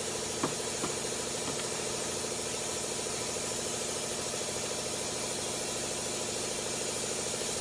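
Small motor running steadily with a constant hum and hiss, sucking leftover gasoline out of a jet ski hull.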